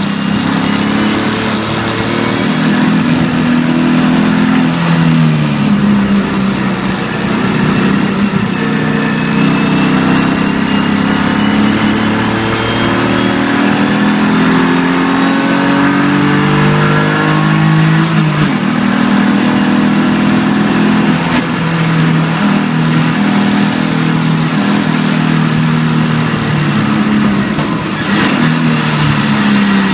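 BMW E46 325ti Compact's 2.5-litre straight-six, heard from inside the cabin, pulling hard with its note climbing under throttle and dropping back in steps at gear changes and on braking, again and again through a lap of a wet track.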